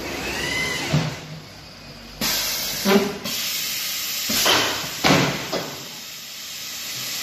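Pneumatic hissing and clunks from a CNC router's automatic board loader: the air cylinders and vacuum suction cups on the lifter arm fire in about four sharp bursts of hiss as it picks up a board, after a brief gliding whine near the start.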